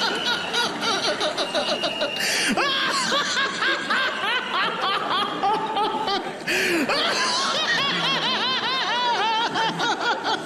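Several people laughing hard together, with a long run of rapid, even 'ha-ha-ha' laughter in the last few seconds. Two short bursts of noise cut through the laughter, about a quarter of the way in and just past the middle.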